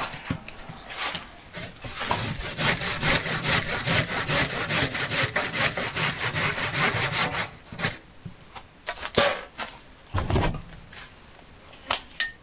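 Hand saw cutting through wood in fast, even strokes for about five seconds, then a single low thump a few seconds after the sawing stops.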